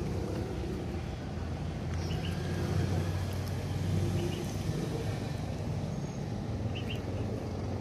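Steady low rumble of road traffic, with a few faint high chirps now and then.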